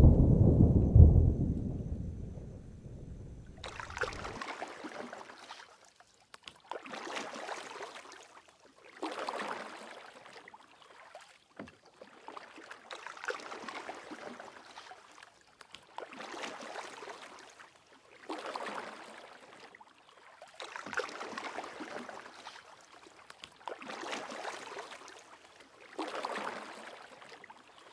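A low rumble of thunder fades away over the first few seconds. Then water washes in regular swells, about one every two and a half seconds.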